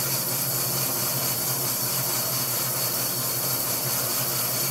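Jet 20-inch bandsaw running with a carbide-tipped Laguna Resaw King blade, sawing slowly through a dogwood log: a steady low hum under an even hiss.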